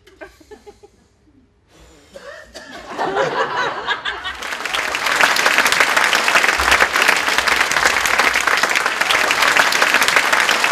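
Theatre audience laughing, then applauding loudly, the clapping swelling from about two seconds in and holding steady from about five seconds on.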